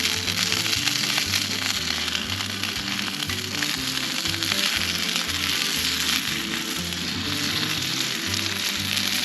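Food sizzling and frying in a pan with a steady hiss, under background music with a stepping bass line.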